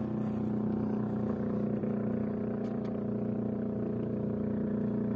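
Motorboat engine running with a steady, even drone. A couple of faint clicks about three seconds in.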